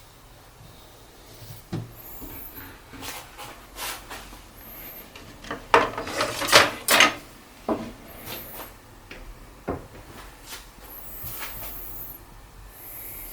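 A kitchen knife handled and scraped against the edge of a kitchen sink basin in irregular strokes and knocks, loudest about six to seven seconds in.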